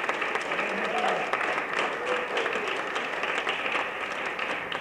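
Audience applauding, many hands clapping at once. A few faint voices can be heard under the clapping.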